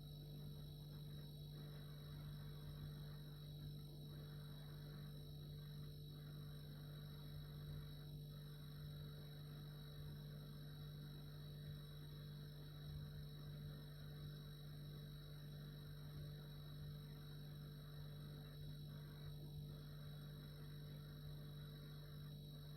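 Refrigerator compressor running, a steady low hum with a faint even whir over it.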